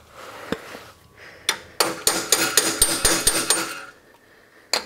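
Carpenter's hammer striking a metal drift against a steel wheel hub clamped in a vise, knocking out a bearing race. A couple of single blows, then a quick run of ringing metallic taps for about two seconds, and one more blow near the end.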